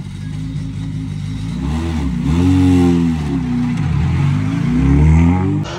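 Skoda Fabia Rally2 Evo's 1.6-litre turbocharged four-cylinder engine pulling away at low speed, its revs rising and falling twice as the car drives past. The sound cuts off abruptly near the end.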